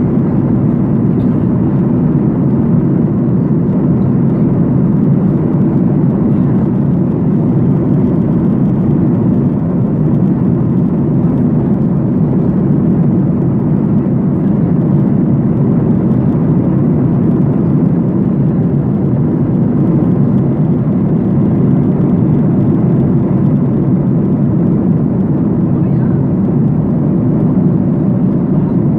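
Steady airliner cabin noise in flight: the even, unbroken rush of the jet engines and the air flowing past the fuselage.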